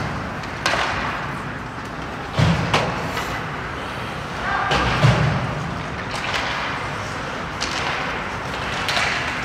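Ice hockey play: about five sharp knocks and thuds from sticks, puck and players hitting the boards, the heaviest about two and a half and five seconds in, over the steady hiss of skating on the ice.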